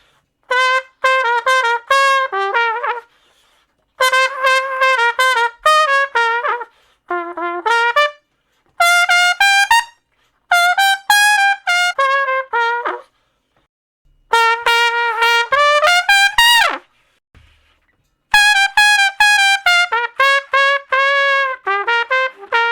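Solo trumpet playing short phrases of quick, separately tongued notes, with pauses of about a second between phrases. One phrase ends in a fast upward smear.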